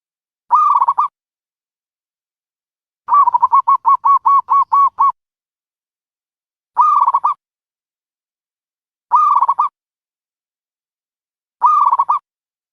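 Dove calling: short, identical cooing phrases about half a second long, repeated four times with gaps, and about three seconds in a quick run of about ten evenly spaced coos lasting two seconds.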